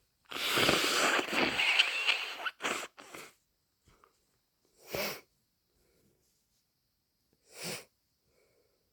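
A person with a head cold blowing their nose in one long, loud blast of about two seconds. Three or four short nasal bursts follow, spaced a few seconds apart.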